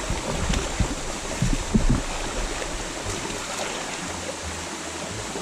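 Steady rush of stream water over rocks, with some low rumbles on the microphone in the first two seconds.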